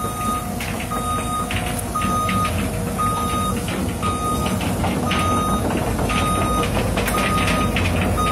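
Warning alarm on a Caterpillar 307E mini excavator beeping steadily about once a second, each beep about half a second long, over the machine's diesel engine running, with occasional metal clanks.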